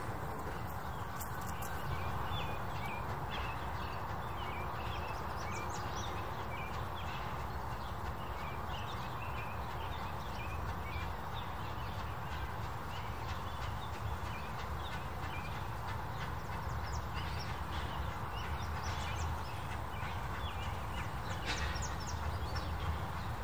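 Birds chirping and singing in woodland, short high calls repeated through the whole stretch, over a steady low rumble.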